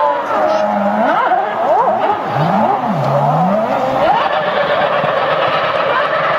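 Ferrari F2008 Formula One car's 2.4-litre V8 heard from a distance on track, its pitch falling and then rising and dropping several times in quick succession as it goes through the gears. The note steadies for the last couple of seconds.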